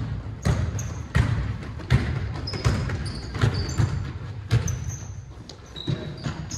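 A basketball being dribbled on a hardwood gym floor, about one bounce every 0.7 seconds, with short high sneaker squeaks in between, in a large echoing gym.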